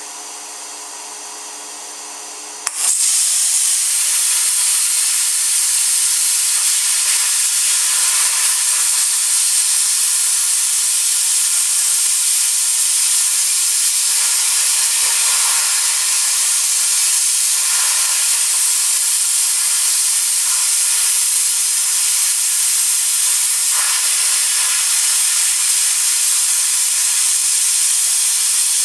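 Plasma cutter: a steady machine hum, then about three seconds in the arc strikes with a sharp click and the plasma jet hisses loudly and steadily as it cuts through the metal.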